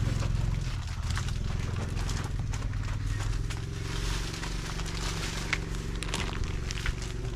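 A steady low machine hum, slightly louder in the first second, with scattered clicks and rustling over it.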